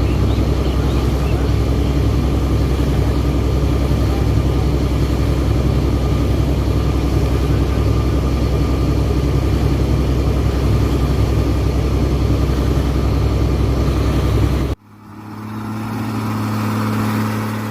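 ELGI borewell air compressor running at a steady, loud drone with a deep low rumble. It cuts off abruptly about fifteen seconds in. A short, low steady hum then swells up and fades away.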